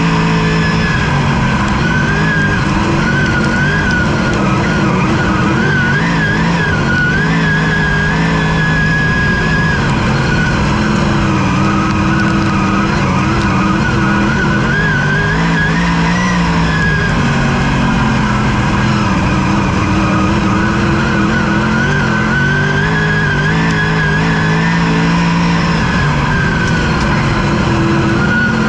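Speedway race car's engine heard from inside the cockpit, loud and continuous, its pitch rising and falling as the throttle comes off and back on around the dirt oval.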